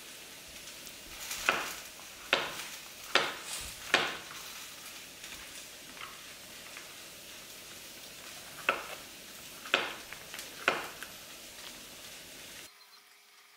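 Santoku knife slicing through a zucchini onto a plastic cutting board: seven crisp chops, four in quick succession over the first few seconds, then three more after a pause.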